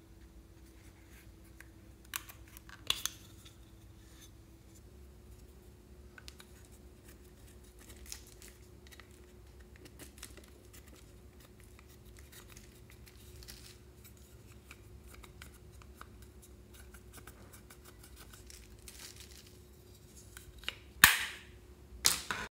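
Plastic eyeshadow compact clicking open, then a plastic spatula scraping the pressed powder out in faint scratches. A couple of sharp plastic clicks near the end, over a faint steady hum.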